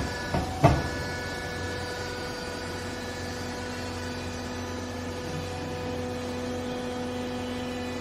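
Hydraulic pump motor of a vertical used-clothes baler running with a steady hum, with two sharp clunks in the first second. A second, deeper tone comes in about three seconds in and holds.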